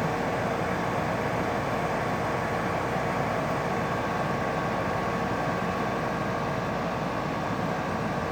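Room air conditioner with a rotary compressor running steadily: the fan blowing with a steady hum and a few faint whining tones on top.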